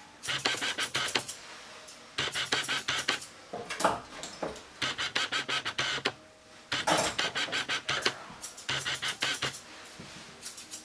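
Grooming shears snipping a terrier's coat in quick bursts of rapid cuts, about six bursts of roughly a second each with short pauses between.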